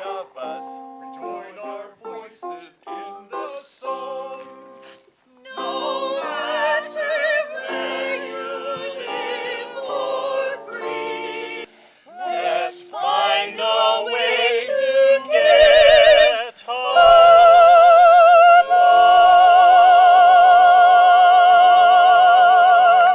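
Music: short plucked-string notes, then fuller sustained notes, building to singing that ends on one long, loud held note with vibrato.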